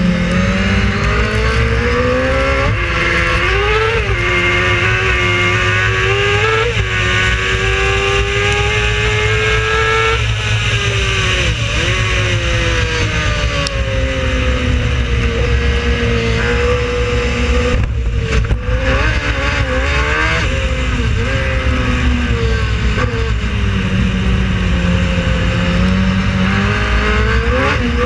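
Racing car engine at full racing speed, its revs climbing through the gears and dropping sharply on lifts and downshifts several times.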